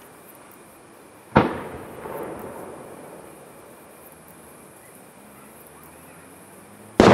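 Two aerial firework shell bangs, the first about a second and a half in and a louder one near the end, each followed by a long rolling echo that slowly fades.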